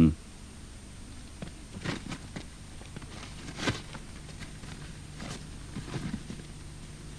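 A short, loud low sound at the very start, then a few faint scattered rustles and light taps, consistent with a paper document being handled, over a steady low hum and a thin high whine.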